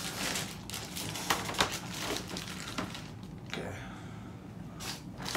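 Handling noise from hard plastic CGC comic-book slabs being moved and set down: irregular sharp clacks, the loudest two close together under two seconds in, mixed with rustling of packaging. A faint steady low hum runs underneath.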